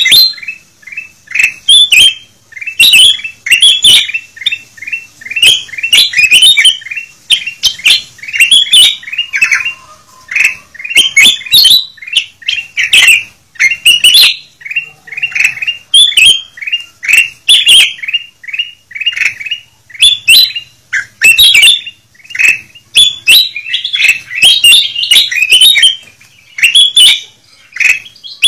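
Several kutilang emas (ruby-throated bulbuls) calling over one another without pause, noisy runs of short, quick chirping notes with sharp clicks mixed in. This is a lure recording of the kind played to draw wild bulbuls down.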